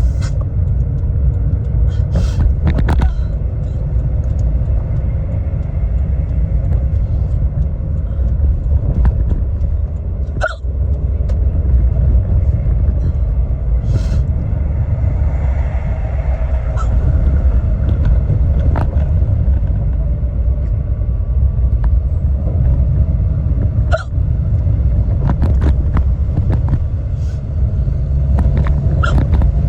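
A woman's deep hiccups, repeated about a dozen times at irregular intervals, sometimes a second apart and sometimes several seconds. Underneath is the steady low rumble of a moving car's cabin.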